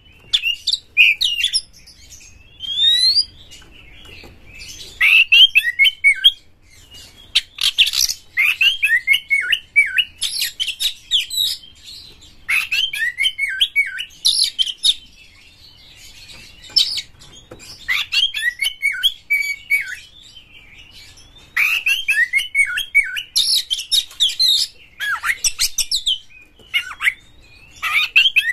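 Oriental magpie-robin (kacer) singing in continuous 'gacor' song. It gives loud phrases of rapid chirps, whistles and rasping high notes, each a second or two long, with short pauses between, about nine phrases in all.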